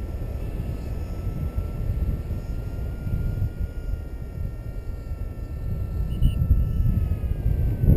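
Airflow buffeting the camera's microphone during a tandem paraglider flight: a steady, uneven low rumble, with a faint thin steady tone in the background.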